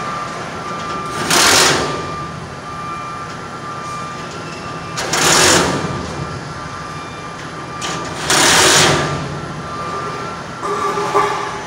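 Cordless impact driver with a 5/16 deep socket run in three short bursts, about 1.5, 5.5 and 8.5 seconds in, tightening fasteners at the corners of a TDC duct flange joint, over a steady background hum.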